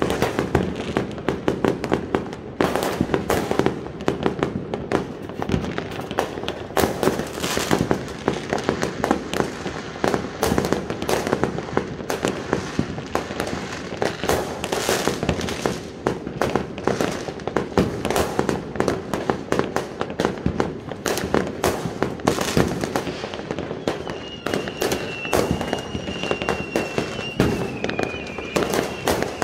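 Many fireworks and firecrackers going off around a neighbourhood at once: a dense, continuous run of bangs and crackles. Near the end a high, steady whistling tone joins in.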